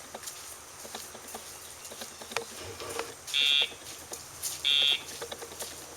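Two short electronic buzzing beeps from the sound box paired to a Dogtra e-collar, each about half a second long and a little over a second apart, marking the collar's pager vibration.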